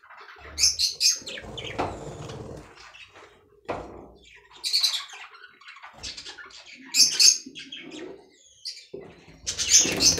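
Small parrots chirping in four short bursts of high calls, with dull knocks and rustling as a wooden nest box is handled and opened.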